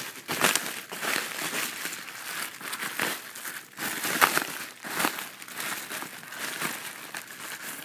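Bubble wrap crinkling and rustling as it is handled and pulled about, with irregular sharp crackles throughout.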